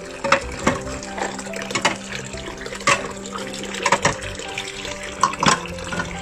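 Ceramic bowls knocking and clattering as they are set down into a plastic dish rack, about nine sharp knocks scattered across a few seconds. Background music plays underneath.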